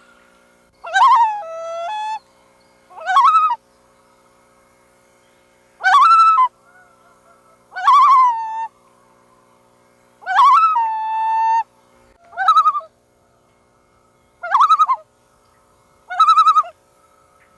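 Loon calling over and over: about nine separate calls, each half a second to a second and a half long, several dropping in pitch at their end.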